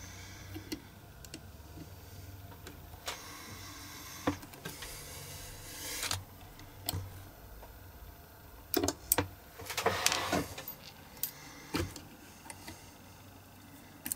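Small metal parts being handled and fitted in a metal jig: scattered light clicks and taps, a quick cluster of sharp clicks about nine seconds in, and two stretches of scraping and rubbing, the first about four to six seconds in, the second around ten seconds in.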